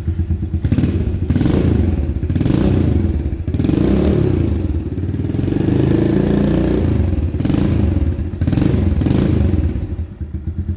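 2022 Kawasaki KLX110R's small single-cylinder four-stroke engine running on its stock factory exhaust, revved up and back down several times with one longer rev in the middle, then settling back to idle near the end.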